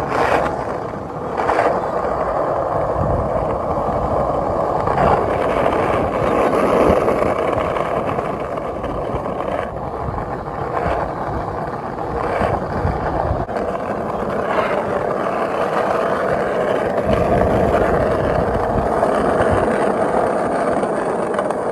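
Skate wheels rolling steadily over street pavement, a continuous gritty rumble with a few short clicks and knocks along the way.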